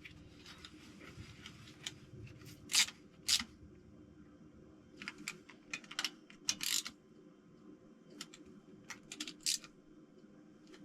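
Scattered light metallic clicks and clinks of hand tools working bolts on an engine, irregular, with a few sharper clicks about three, six and a half and nine and a half seconds in, over a faint steady hum.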